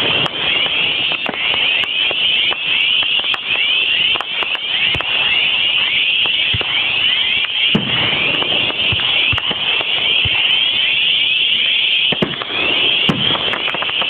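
Aerial fireworks going off one after another: a continuous dense crackle with frequent bangs, and several heavier booms in the second half.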